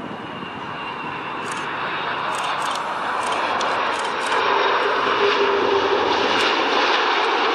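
Airbus A330 jet engines as the airliner touches down and rolls out along the runway: a broad jet roar that grows steadily louder, stepping up about four seconds in, when a steady hum joins it.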